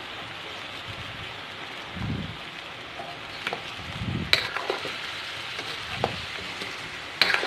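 Pork trotter pieces and onion sizzling steadily in a wok as they are stir-fried, with a few sharp clicks and dull knocks of the spatula against the pan.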